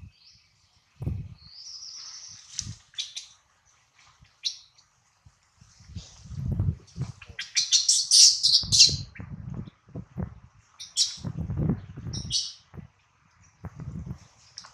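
Newborn long-tailed macaque crying in high-pitched squeals and chirps that come in bursts, loudest in a rapid run about halfway through. The uploader takes the crying for hunger and missing its mother. Low dull thumps and rustles come between the cries.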